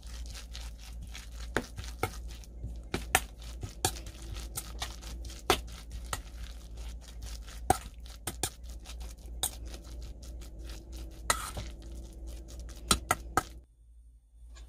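Metal spoon stirring and mashing fish cake paste in a stainless steel mixing bowl: irregular clinks and scrapes of metal on metal, stopping about a second before the end.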